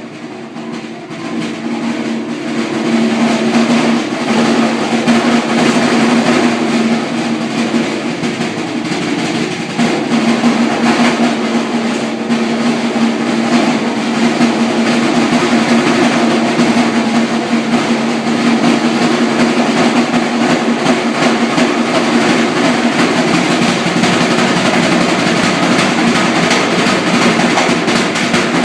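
Drums played loudly and without a break, a dense, rapid stream of strokes that builds up over the first few seconds, with a steady ringing drum tone under it: a racket.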